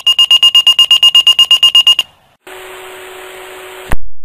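Fire-department voice pager (Motorola Minitor) sounding its alert: a fast train of high beeps, about nine a second, for two seconds, signalling an incoming dispatch. The radio channel then opens with a steady hiss and low hum for about a second and a half, cut off by a sharp click, with a second click near the end.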